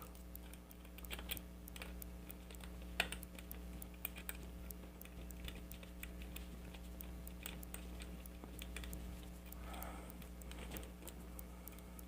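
Faint, irregular small metallic clicks and ticks of a hook pick working the pins of a pin-tumbler challenge lock held under tension. A steady low electrical hum runs underneath.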